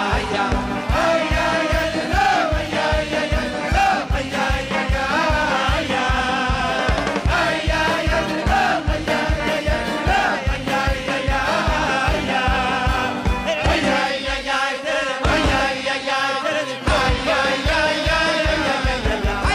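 Upbeat Hasidic pop song: a man sings the lead over a band with a fast, steady drum beat. The drums drop out briefly twice near the end.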